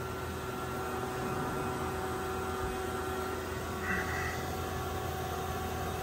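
Vacuum pump running steadily, a hum with a few steady tones, as it evacuates a car's AC system down to deep vacuum, around 680 microns.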